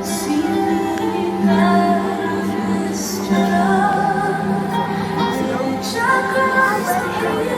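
Show music with a woman singing long, held notes over a sustained accompaniment.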